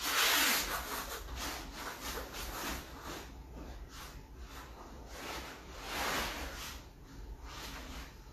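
Rustling and rubbing of cotton gis and bodies shifting on foam floor mats as two people grapple, in irregular swells, loudest right at the start and again about six seconds in.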